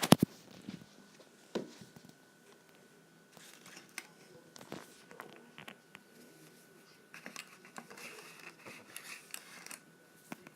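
A homemade toy vending machine being handled: a sharp clatter of clicks at the start, then scattered small clicks and taps with light rustling and scraping, busier in the second half.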